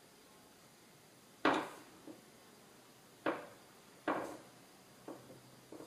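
Hard plastic knocks and clicks as a tail light's outer lens is pressed and seated onto its housing: about six short knocks, the first the loudest, the rest smaller and roughly a second apart.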